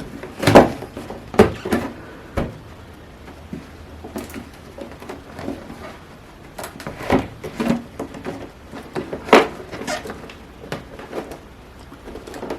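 A cardboard box being handled: irregular knocks, taps and scrapes, the loudest about half a second in and another near the middle.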